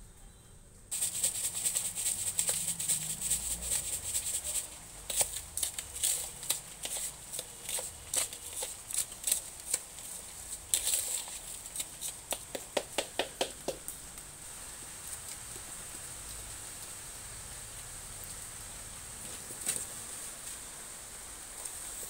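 Hand trowel scraping and scooping potting soil in a terracotta pot: a rapid, irregular run of gritty scrapes and rattles starting about a second in and dying away a little past halfway. A steady high-pitched hum continues underneath throughout.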